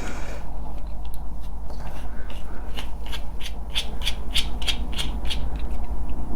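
Screwdriver working a small screw out of a plastic wireless car charger housing: a quick run of light clicks, about four a second, through the second half, over a steady low hum.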